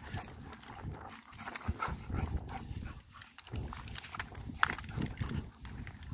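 Running footsteps thudding unevenly on a wet grassy track, with wind rumbling on the microphone.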